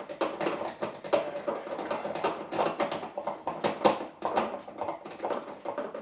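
Hand screwdriver turning a screw back in at a dishwasher's float switch: a rapid, uneven run of clicks and ticks.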